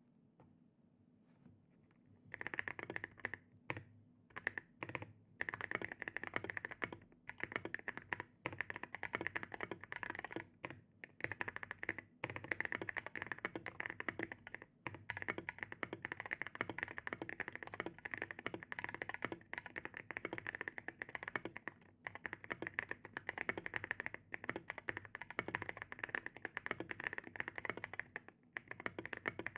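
Custom 60% mechanical keyboard, lubed Gazzew Boba U4T tactile switches under SA-P Snowcap keycaps on a polycarbonate plate in a foam-filled aluminium case, typed on at a slower pace. The typing starts about two seconds in and runs as a steady patter of creamy keystrokes with a few brief pauses.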